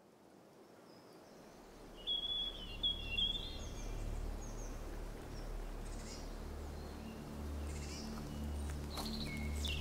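Outdoor ambience fading in: birds chirping, loudest about two to three seconds in and again near the end, over a low steady hum that grows stronger in the second half.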